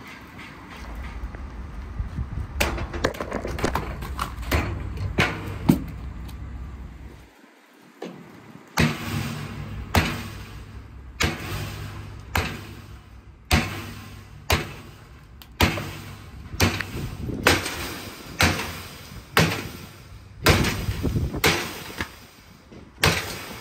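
A low steady hum with a few scattered knocks, then, after a brief lull, a long run of sharp heavy strikes at roughly one a second.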